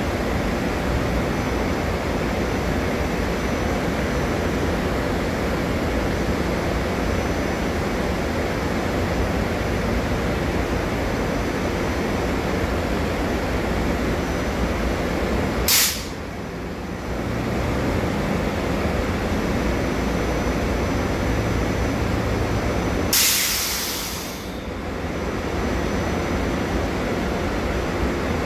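Stationary electric commuter train (SEPTA Silverliner-type multiple-unit cars) idling with a steady mechanical noise. A sharp hiss of released brake air comes about halfway through, and a longer hiss follows about eight seconds later.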